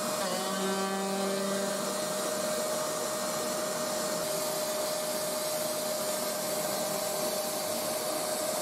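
Vacuum cleaner running loudly right next to a CNC router's spindle as it cuts a thin surfacing pass across an MDF wasteboard: an even noise with a steady whine. Fainter tones come and go in the first few seconds.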